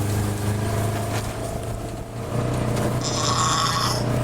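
Vehicle engine running steadily at low speed. About three seconds in, a brief high-pitched sound rises over it.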